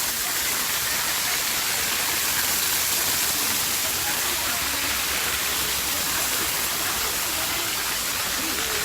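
Steady rushing of water from a small waterfall, an even hiss at an unchanging level.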